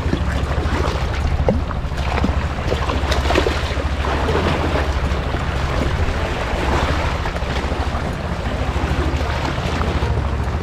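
Water splashing and sloshing irregularly as a person wades chest-deep through a muddy river, over a steady low rumble of wind buffeting the microphone.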